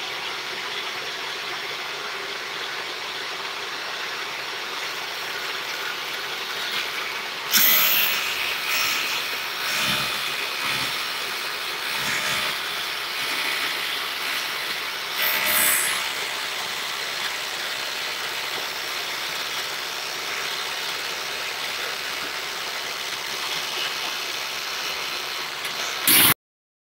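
Table saw running steadily while its blade cuts through aluminum plate, with louder, shriller surges about 8 seconds in and again about 15 seconds in as the blade bites into the metal. The sound cuts off abruptly near the end.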